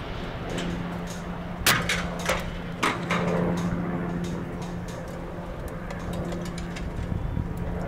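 Demolition charges in a stadium grandstand implosion going off as three sharp cracks about half a second apart, near two seconds in, over a steady low hum. Scattered crackling follows as the structure starts to come down.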